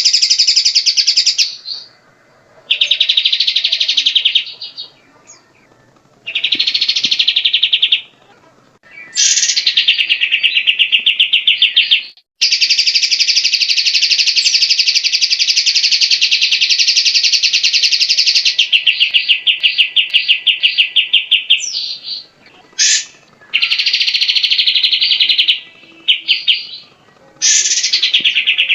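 Cucak jenggot (grey-cheeked bulbul) singing loudly in rapid trilled phrases a second or two long, separated by short pauses, with one run in the middle lasting about six seconds.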